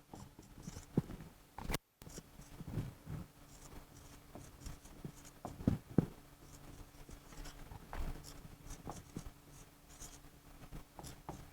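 Faint, irregular scratching strokes of handwriting as a reaction scheme is written out.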